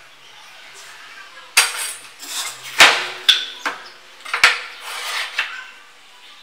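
Steel try square being picked up and set down on plywood: about five sharp metallic clacks with scraping between them, some with a brief ring, starting about a second and a half in.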